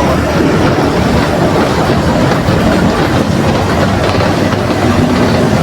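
Mercedes-Benz OF 1721 BlueTec 5 bus diesel engine running steadily as the bus drives, mixed with the even noise of the moving bus.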